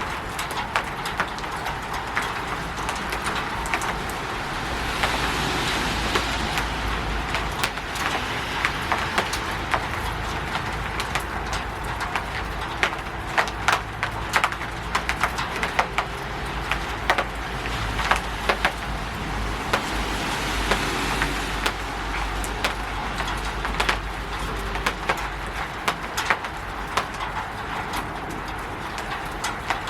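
Rain on a roof: a steady hiss with many irregular, sharp drops and drips tapping close by. The hiss swells for a couple of seconds about five seconds in and again around eighteen seconds in.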